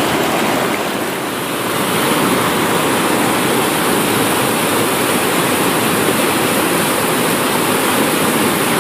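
A fast, rocky river's rapids: white water rushing steadily over boulders, a little softer for the first two seconds.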